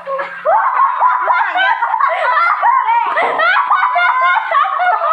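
High-pitched laughter, nearly unbroken after a short dip at the start.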